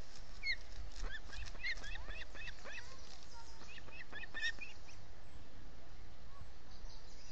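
Ospreys chirping at the nest during a feeding: a rapid run of short, high-pitched chirps that stops about five seconds in.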